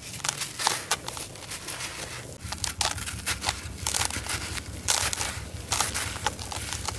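Hands crumbling and squeezing dry, gritty sand-cement mix in a plastic tub: irregular crunches and a grainy rustle as clumps break and grains pour back down.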